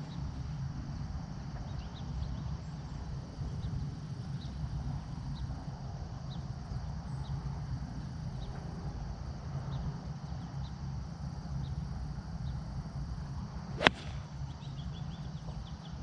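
A golf iron strikes a ball off the tee: one sharp, crisp click near the end, over a steady low rumble.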